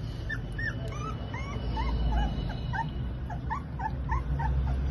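Rottweiler puppies whimpering and yipping as they play-fight: a run of short, high squeaks, about three a second.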